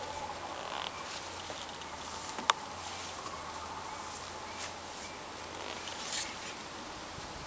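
Faint background hiss with a low steady hum and scattered small clicks, and one sharp click about two and a half seconds in.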